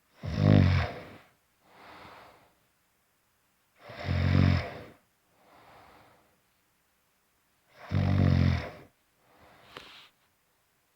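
Snoring in a steady breathing rhythm: three loud snores about four seconds apart, each followed by a softer, shorter breath.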